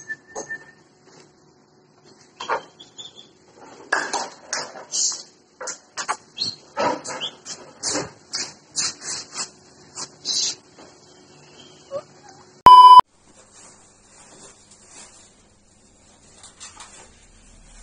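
A puppy's short cries and yips, many in quick succession, followed about 13 seconds in by a loud single-tone beep, the loudest sound, and then faint rustling.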